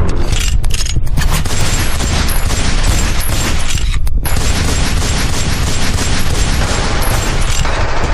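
Recorded machine-gun fire sound effect: continuous rapid volleys of automatic gunfire, played as part of the skit's soundtrack.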